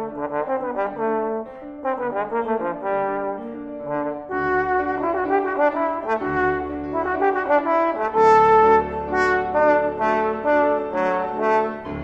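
Trombone playing a classical melody with grand piano accompaniment. Quick, separate notes give way to fuller held notes about four seconds in, and the music is loudest about eight seconds in.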